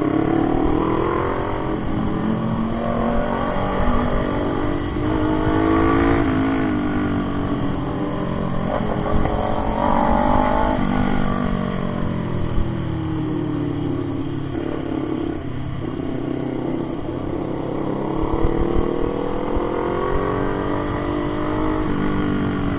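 Motorcycle engine running under way, its pitch climbing and dropping back several times as the rider accelerates and shifts through the gears.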